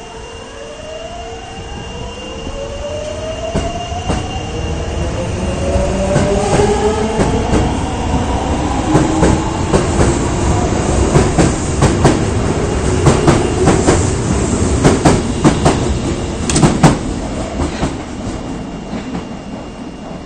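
Osaka Municipal Subway 22 series electric train pulling away. Its traction motors whine, rising steadily in pitch as it accelerates, and then its wheels clatter over rail joints, loudest about two-thirds of the way in before fading as the train draws away.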